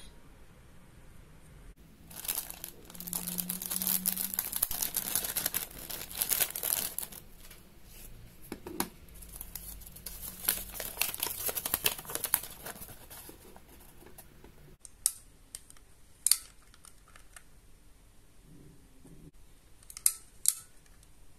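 Paper and packaging crinkling and rustling for about twelve seconds as a folded instruction leaflet is handled. After that it is quieter, with a few sharp clicks from a small plastic toy buckle being turned in the hands near the end.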